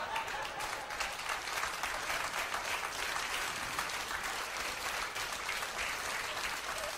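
Theatre audience applauding, dense and steady clapping.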